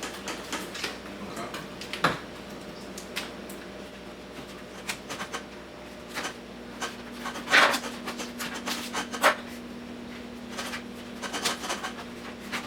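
Packaging being handled and opened: scattered rubbing and scratching with irregular clicks and knocks, the loudest about seven and a half seconds in. A faint steady hum comes in about halfway through.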